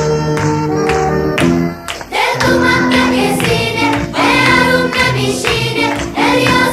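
Music: a picked instrumental melody that breaks off about two seconds in, then gives way to a sung chorus over a steady beat.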